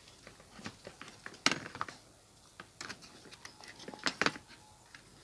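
Scattered light clicks and knocks of an induction cooker's parts being handled and fitted back together during reassembly. There is a sharper knock about a second and a half in and two more around four seconds.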